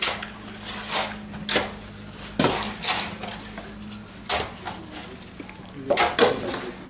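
Metal basins of wet mud being filled, carried and emptied by hand: irregular clanks and scrapes of metal and mud, about nine in all, over a faint steady hum.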